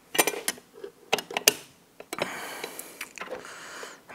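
Metal parts of a drum brake shoe assembly clicking and clinking as the springs and self-adjuster are handled and fitted, with a run of sharp clicks in the first second and a half and then a softer scraping rub.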